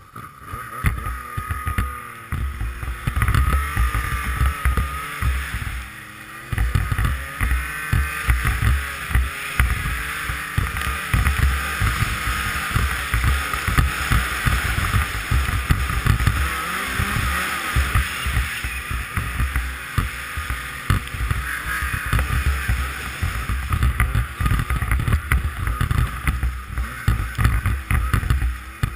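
Yamaha Nitro snowmobile's four-stroke three-cylinder engine running under way, its pitch rising and falling repeatedly as the throttle is worked, with wind buffeting the microphone.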